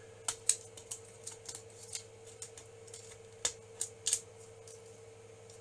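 Irregular sharp plastic clicks and snaps as support pieces are picked and broken off a 3D-printed part, the loudest about half a second in and about four seconds in. A faint steady hum runs underneath.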